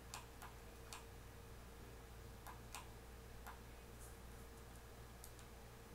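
Near silence with a steady faint hum, broken by a few faint, irregular clicks of a computer mouse and keyboard.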